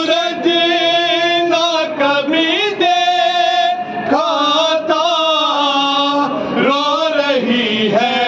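Men's voices chanting a noha, the Urdu Shia mourning lament, together in unison, with long held and bending melodic notes.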